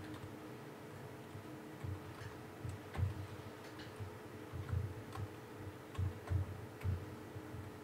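Faint, scattered clicks and soft knocks, about ten over several seconds, the loudest about three seconds in, over a steady low electrical hum: a computer being clicked to page through projected images.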